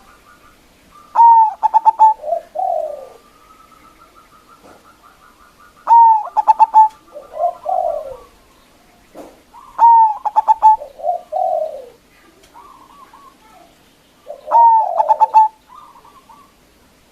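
Zebra dove (perkutut) singing its cooing song, loud and clear: four phrases about four seconds apart. Each phrase is a high opening note, a quick stuttering run of notes, then lower coos. A faint rapid trill runs in the background between some phrases.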